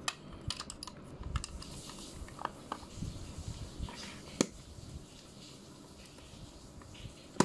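Handling clicks from a 1939 Argus A2F camera: scattered small clicks and knocks as its back is fitted onto the body, with a sharp click about four and a half seconds in and another near the end.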